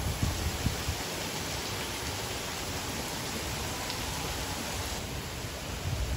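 Steady rushing hiss of water falling from an artificial rock waterfall, with a few low bumps in the first second.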